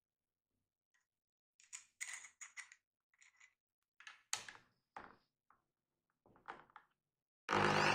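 Small metallic clicks and taps as a bolt is seated in an electric drill's keyed chuck and the chuck key is turned to tighten the jaws. Near the end the drill switches on and runs at speed, with a rising whine.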